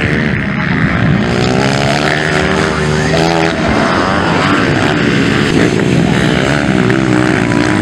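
Motocross bike engines revving and dropping as riders work the throttle and shift, several bikes overlapping in a continuous rising-and-falling drone.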